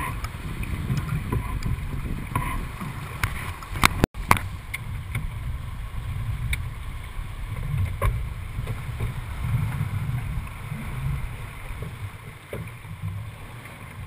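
Wind buffeting the microphone and the rush of a sailing yacht moving through the water, with scattered sharp clicks and knocks from deck gear. The sound cuts out for an instant about four seconds in.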